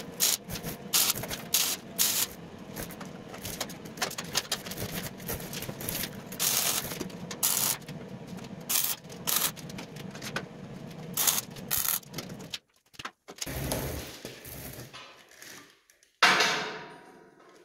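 Electric arc welder tacking a steel trailer frame, its arc crackling unevenly for about twelve seconds. It breaks off, returns in shorter spells, and ends with a brief, louder burst of crackling hiss near the end.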